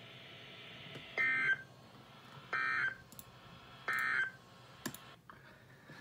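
NOAA Weather Radio end-of-message code for an Emergency Alert System warning: three short bursts of the two-tone digital SAME data signal, each under half a second and about a second and a half apart, over steady receiver hiss. A faint click near the end.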